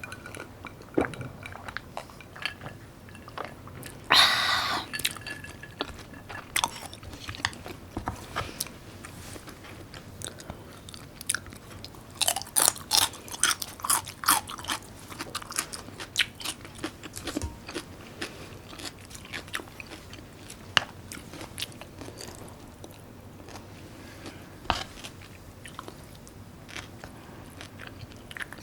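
A person eating close to the microphone: chewing and biting food with many short, wet clicking mouth sounds, which come thickest about halfway through. About four seconds in there is one louder, noisy swish lasting about a second.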